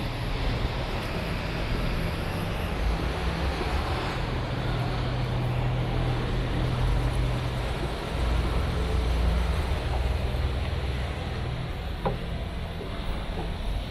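Steady city traffic noise: a continuous hiss with a low, uneven rumble underneath.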